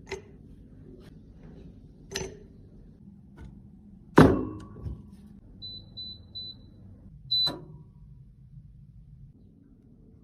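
Light clicks and knocks of small objects being handled, the loudest about four seconds in, then a few short high electronic beeps.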